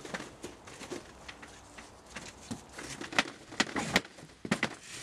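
Footsteps and scuffs on paving, a run of short, irregular knocks that grow louder and closer together in the second half.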